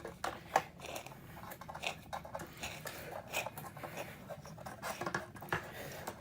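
Scattered small clicks and scrapes of hard plastic parts of a Dirt Devil race car vacuum being handled and pried at as it is taken apart by hand.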